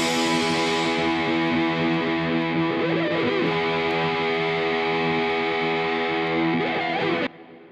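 Background rock music: a distorted electric guitar holding sustained chords with a couple of bent notes and no drums, cutting off abruptly near the end.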